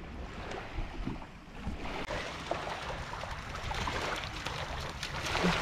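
Small waves lapping on a sandy beach. About halfway through, a Labrador joins in, splashing as it runs through the shallows.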